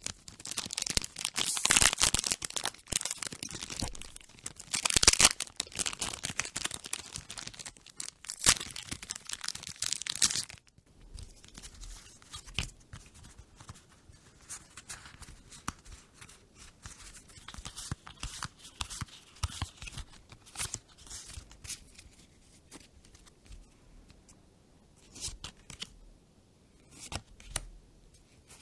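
A foil Magic: The Gathering booster pack wrapper being torn open and crinkled for about ten seconds. After that come quieter clicks and rustles of the playing cards being handled and flipped through one by one.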